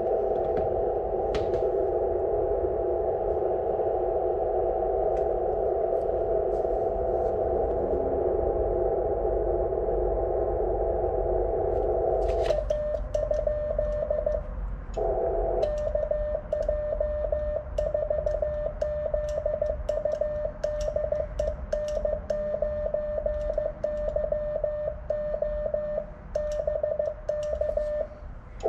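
HF ham transceiver's receiver hiss, squeezed into a narrow band by the radio's filter, on a fading 20-metre band. About twelve seconds in it gives way to a single-pitched Morse code (CW) tone keying on and off in dots and dashes.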